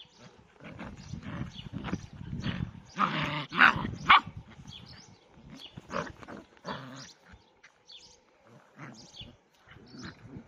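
Border Collie and Belgian Malinois cross puppies growling and giving short barks in rough play, tugging at a person's trouser leg. The sound comes in irregular bursts, loudest three to four seconds in.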